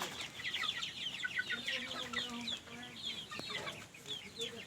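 A flock of young local chickens, about 45 days old, calling together: many short falling cheeps overlapping, with a few lower drawn-out clucks among them.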